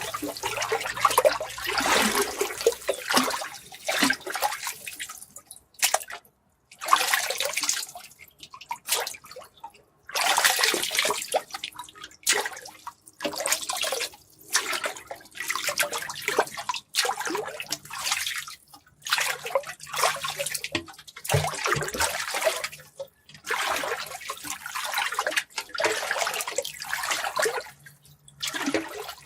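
Water gushing in a long run of separate bursts, each lasting a second or two, with short breaks between them.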